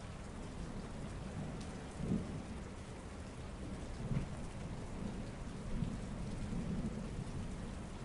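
Steady city rain falling, with several short low rumbles about two, four and six seconds in.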